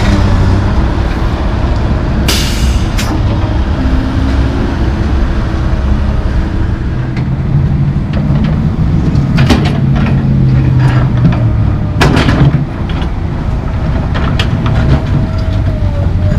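Komatsu PC220LC excavator's diesel engine running, its note shifting as the hydraulics work, with several sharp clanks of the bucket against broken concrete.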